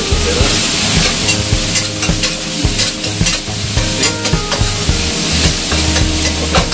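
Stir-frying in a stainless steel wok: a metal spatula scrapes and clinks against the pan again and again while chopped green onion and chili sizzle in hot oil.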